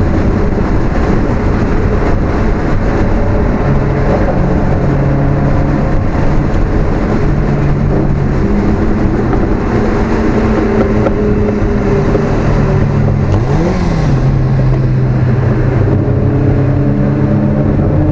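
Alfa Romeo 1750's twin-cam four-cylinder engine running hard on track, heard onboard over wind and road noise. The engine note holds steady for stretches and steps between pitches, with a quick rise and fall in pitch a little past the middle.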